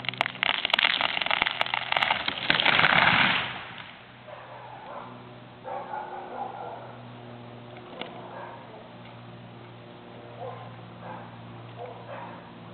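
Dead fir tree falling: wood cracking and snapping in quick succession, then the crash of the trunk and branches hitting the ground about three seconds in. Afterwards a steady low hum remains.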